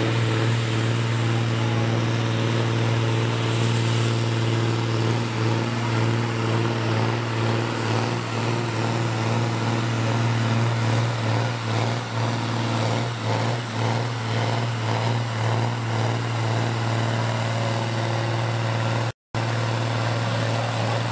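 Ford 7810 tractor's diesel engine held at steady high revs under full load, pulling a tractor-pull sled. About halfway through, a fast rhythmic pulsing runs through the engine note. Near the end the sound drops out for a split second.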